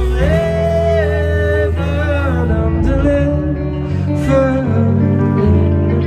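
Live band music: a male voice singing held, gliding notes over hollow-body electric guitar and bass.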